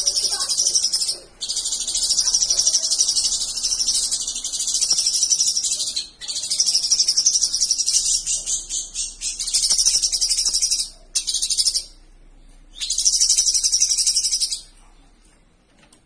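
Caged leafbird (cucak cungkok) singing a loud, fast, high-pitched warbling song in long phrases with short breaks, falling silent a little before the end.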